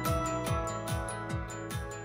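Background music with a steady drum beat, about two and a half beats a second, over sustained instrument tones, gradually fading out.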